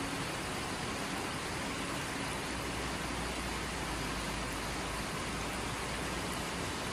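Steady, even rushing noise with no clear source, with a heavier low rumble in the middle few seconds.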